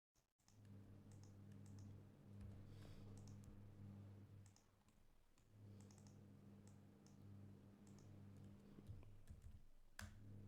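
Near silence with faint, scattered computer mouse and keyboard clicks as the drawing is edited in AutoCAD, over a low steady hum; one sharper click near the end.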